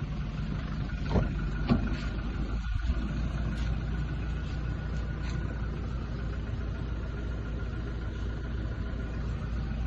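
Toyota Innova Reborn's four-cylinder turbodiesel engine running steadily, with two short knocks a little over a second in.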